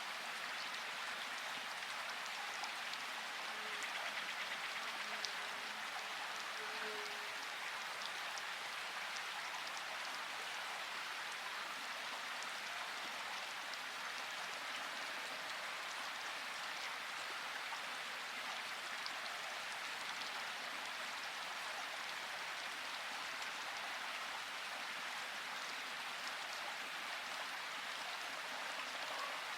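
Steady rain falling in a forest: an even hiss of rain with many small, sharp drop ticks.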